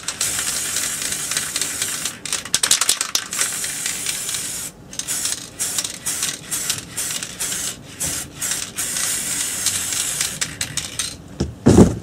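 Aerosol spray-paint can hissing in long bursts of a few seconds each, broken by short pauses and by runs of quick rattling clicks as the can is shaken. A brief louder low rumble comes just before the end.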